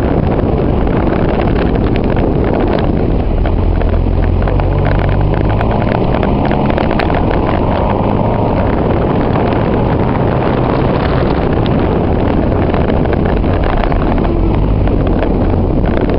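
Car engine accelerating hard through an autotest run, heard from inside the cabin, its note climbing in the middle as the car picks up speed, over a constant rumble of wind and rough ground.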